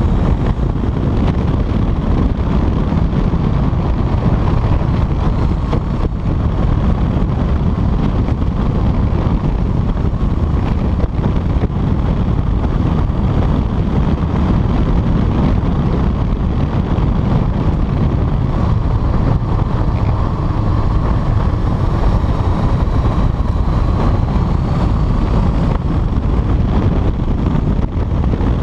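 Steady, loud wind rushing over a chest-mounted GoPro on a Honda CBR motorcycle at road speed, with the bike's engine running faintly beneath it.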